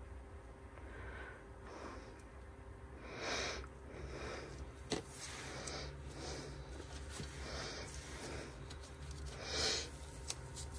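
Quiet breathing through the nose, a short soft breath about every second, over a low steady hum, with one small click about five seconds in.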